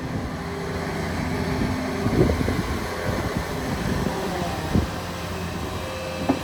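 Volvo EW210D mobile excavator's diesel engine running steadily, with a few sharp knocks about two, five and six seconds in.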